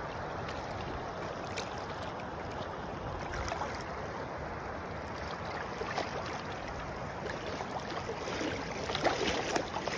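Shallow river running over gravel, a steady rush of water, with splashing in the shallows growing over the last second or two.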